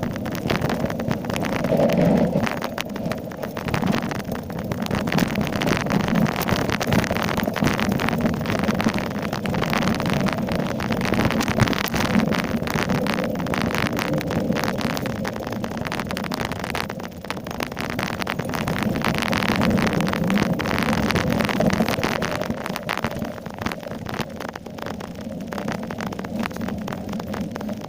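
Downhill mountain bike running over rough trail: a continuous clattering rattle of the bike and tyres on the ground, dense with small knocks and jolts.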